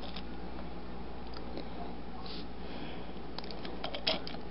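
Light clicks and taps of fingers handling a small plastic action-figure accessory, a few clicks coming close together near the end, over a steady low hum.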